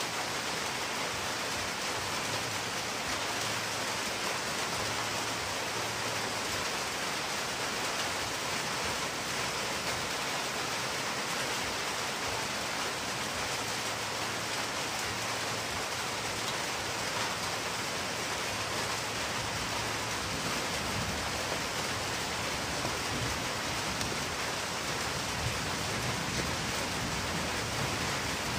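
Steady, even hiss-like background noise with no distinct events in it.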